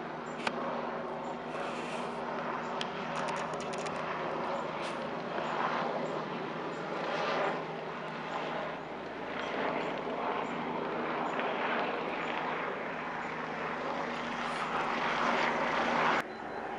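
Aircraft engine droning steadily overhead, with the level dropping abruptly near the end.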